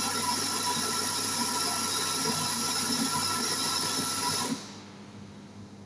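Electric coffee grinder running steadily as it grinds a 19-gram espresso dose into the portafilter, then cutting off about four and a half seconds in.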